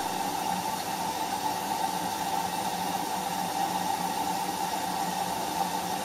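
Steady, even hiss of noise with no distinct events, strongest in a band in the middle range.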